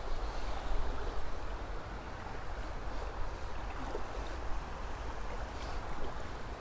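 Shallow river running steadily over a stony bed, an even rushing of water with a low rumble underneath.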